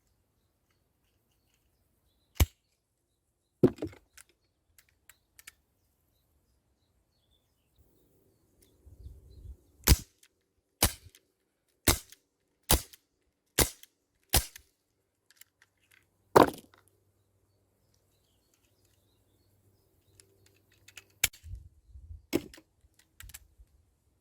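ASG Dan Wesson 715 CO2 BB revolver firing sharp, cracking shots. Two single shots come first, then six in a row about a second apart, one more, and a few weaker cracks near the end, with light handling clatter between them.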